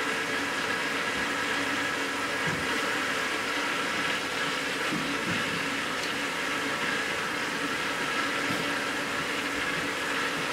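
Watercooling pump running in a freshly filled PC liquid-cooling loop, a steady whir with a few held tones. Air is still in the loop and the water is hardly moving yet.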